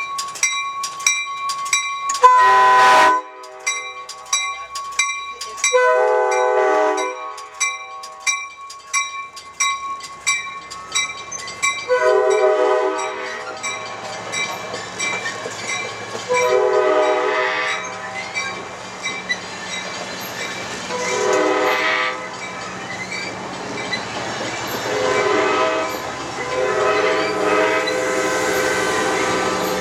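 Grade-crossing warning bell ringing steadily at about two and a half strokes a second while an approaching diesel passenger locomotive sounds its chime horn in a series of long blasts. From about halfway through, the locomotive's engine rumble and wheel clatter grow beneath the horn and the bell fades out.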